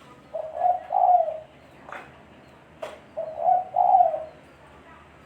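Spotted dove (tekukur) cooing: two phrases about three seconds apart, each a few low notes ending in a longer one. A couple of faint sharp clicks fall between the phrases.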